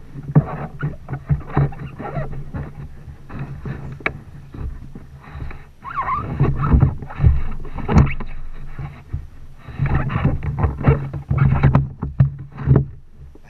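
Water lapping and slapping against the hulls of two sea kayaks lying side by side, in irregular splashes and knocks over a steady low hum.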